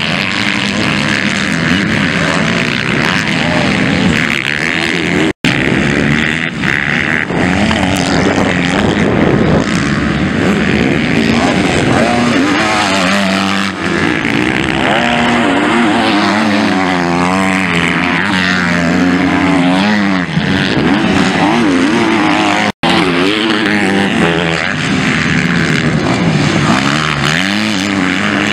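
MX2-class motocross bike engines revving hard, their pitch rising and falling as the riders work the throttle through corners and straights. The sound cuts out completely for an instant twice.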